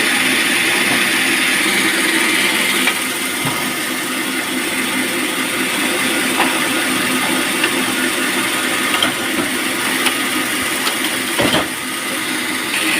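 Band sawmill running with a steady machine hum. A hissing cutting sound is strongest for the first three seconds and returns at the very end. A few short knocks come near the end.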